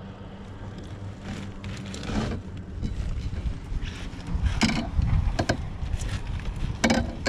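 Wind rumbling on the microphone over open water, with scattered short knocks and rustles as a gar is worked free of a tangled landing net on the boat's deck.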